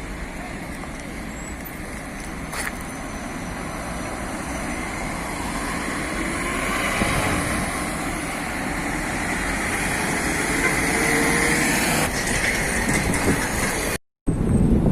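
Steady road traffic noise, slowly growing louder, that breaks off for a moment near the end.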